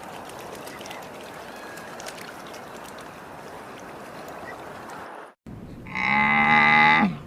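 A steady background hiss for about five seconds, then after a brief break a cow's loud moo lasting just over a second near the end, dropping in pitch as it fades.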